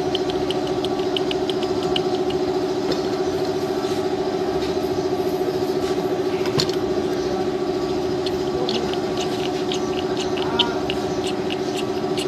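Motorcycle engine idling steadily with its side cover off, the oil pump's drive chain and sprocket exposed, being run to check the oil pump. A fast, light ticking runs over the steady hum, several ticks a second.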